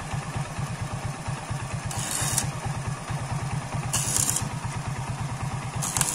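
Electric arc welding on a motorcycle's steel frame: short bursts of arc crackle and hiss, about every two seconds, over a steady low rhythmic drone of a running motor.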